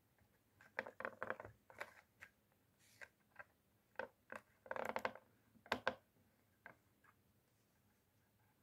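Small hard objects being handled: a run of sharp clicks, taps and short clattering rattles, densest just after a second in and again around five seconds, dying away after about six seconds.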